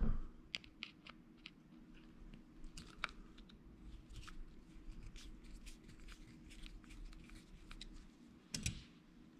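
Faint, scattered small clicks and scrapes of a flat-head screwdriver working a screw loose in the metal body of a Penn 430SS spinning reel, with a short louder clatter near the end.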